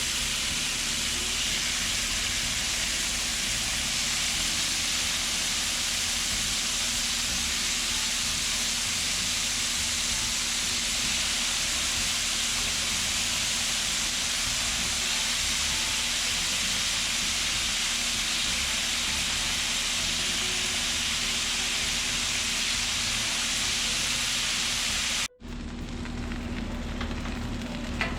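Marinated chicken pieces sizzling steadily on a hot, oiled flat-top griddle. About 25 seconds in, the sound cuts out briefly and comes back as quieter sizzling with a few clicks.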